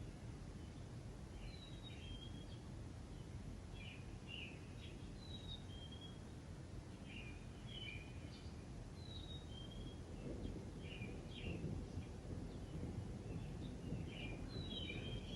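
Small birds chirping with short, quick calls repeated throughout, over a low steady background rumble that grows a little louder about two-thirds of the way through.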